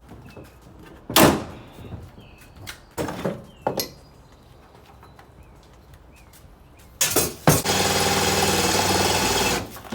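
A few metal knocks and clanks from work on the Humvee's fender, then near the end a power drill runs steadily for about two seconds and stops.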